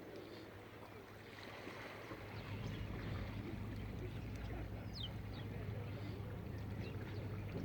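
A boat's engine running with a steady low hum that grows louder about two and a half seconds in, over open-air background noise, with a few faint high chirps.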